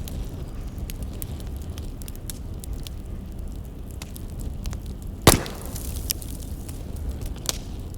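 Burning firewood crackling: a steady run of small snaps and ticks over a low rumble, with one loud sharp pop about five seconds in and a smaller pop near the end.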